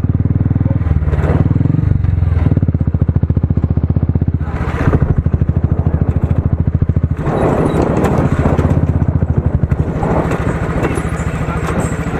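Motorcycle engine running at low speed with a steady, rapid low pulse, as the bike rolls slowly over dirt. Background voices and wind noise swell about seven seconds in.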